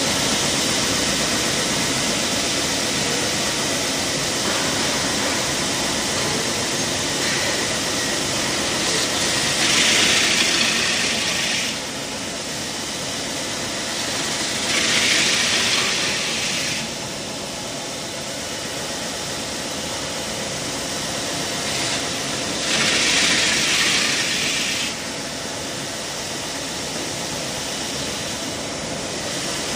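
Double belt sanding machine for round wooden sticks running steadily, with three louder hissing stretches of about two seconds each as sticks pass through the sanding belts.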